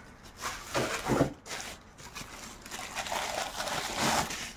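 Thin plastic wrapping rustling and crinkling as a cooking pot is lifted out of its cardboard box and unwrapped. A few short handling noises come in the first second or so, and the rustle grows denser in the second half.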